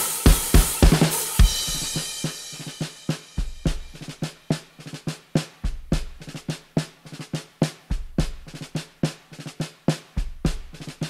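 Solo drum kit from the Addictive Drums 2 sampler at about 106 bpm. A steady kick-and-snare beat with cymbals gives way, about a second and a half in, to a crash ringing out. It then moves into a busier pattern of quick snare strokes over occasional kick-drum hits, with no cymbals.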